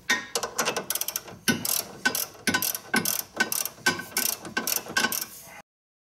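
Ratchet wrench clicking in quick back-and-forth strokes, about two to three a second, as it runs down the lower nut of a front sway bar (stabilizer) link. The clicking cuts off suddenly near the end.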